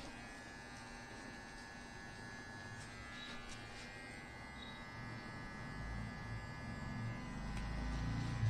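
Electric hair clipper running with a steady buzz while cutting hair, a low rumble growing louder toward the end as it works against the head.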